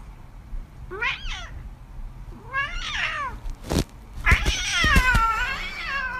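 Cat meowing: a short meow about a second in, another near three seconds, then one long, drawn-out meow to the end. A few sharp knocks sound around four to five seconds in.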